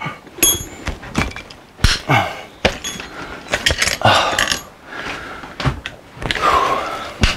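Long-handled cable crimper squeezing an aluminum ferrule onto stainless steel cable: irregular metallic clicks, creaks and knocks from the tool's jaws and handles, mixed with rubbing on a body-worn mic, really noisy.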